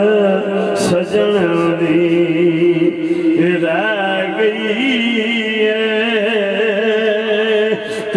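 A man's voice singing long, drawn-out notes that waver and glide, in the style of a Punjabi devotional verse, amplified through a microphone and loudspeakers.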